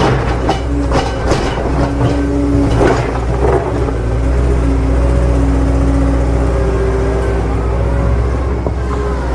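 RC model truck running: a steady low engine-like drone with higher tones that shift up and down. A few clicks and knocks come in the first three seconds.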